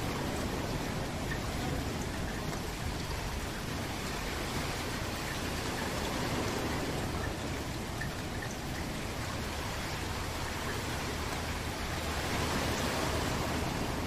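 Steady rain falling: a dense, even hiss with scattered drop ticks, growing slightly louder near the end.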